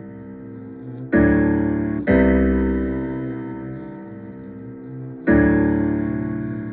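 Slow keyboard chords with a piano-like tone, each struck and left to fade, with a deep bass under them. New chords come in about a second in, at about two seconds, and again past five seconds.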